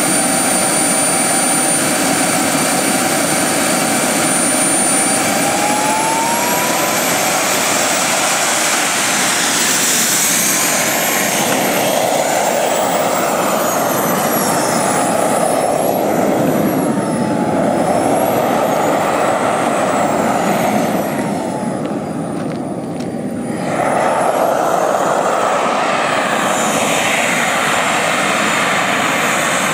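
Boomerang XL radio-controlled model jet's small turbine engine: a steady high whine that spools up in pitch about six seconds in. The whine then sways up and down in pitch again and again as the jet flies past, fading briefly past the middle.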